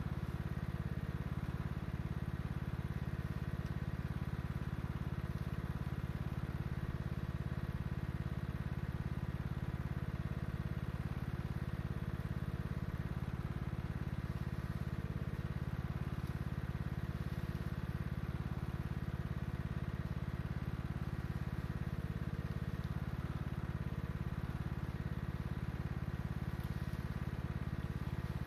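TroyBilt Bronco lawn tractor's 19 hp Kohler Courage engine idling steadily.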